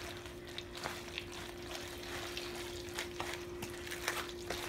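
A spatula stirring mayonnaise-coated pasta salad in a plastic bowl: wet squishing with irregular small clicks and scrapes of the utensil against the bowl. A faint steady hum runs underneath.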